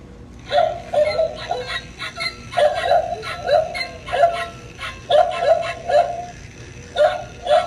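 Battery-operated animated skeleton dog decoration barking through its small built-in speaker: several runs of short electronic barks with brief pauses between.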